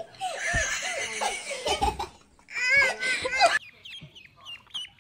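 Giggling and laughter, then, after a cut about three and a half seconds in, ducklings peeping: a quick run of short chirps, each falling in pitch.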